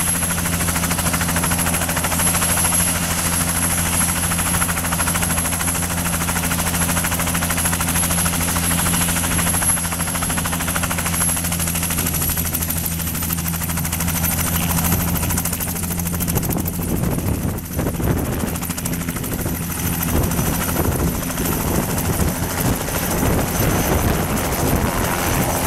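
Bell 206 JetRanger III helicopter running with its rotor turning, a steady low hum under a thin high turbine whine. About two-thirds of the way through, as it lifts off the ground, the steady hum turns rough and unsteady.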